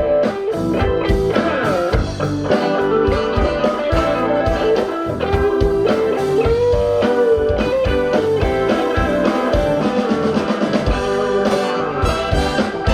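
Live blues-rock band playing: guitar carrying sustained, bending melody notes over a steady drum-kit beat.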